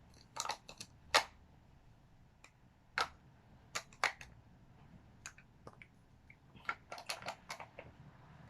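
Small plastic toy pieces being handled and fitted together: scattered, irregular sharp clicks and knocks, the loudest about a second in.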